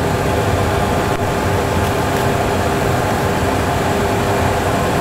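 Steady jet engine and airflow noise from a Boeing 737 Classic flight simulator's sound system, its engines at takeoff thrust in the initial climb, with a faint steady hum running through it.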